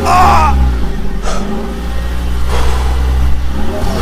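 A vehicle engine running steadily with a low, even drone, and a brief pitched, voice-like sound at the very start.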